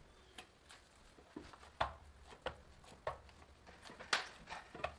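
Hands kneading green pea poori dough in a stainless steel bowl: irregular soft squelches and knocks, about one or two a second, the loudest about two seconds in and again about four seconds in.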